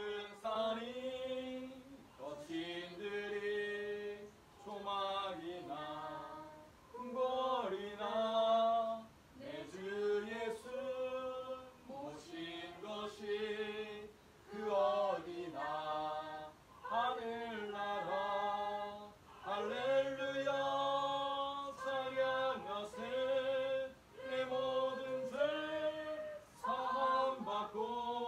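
Voices singing a hymn together without instruments, in slow phrases of held notes with short breaths between them.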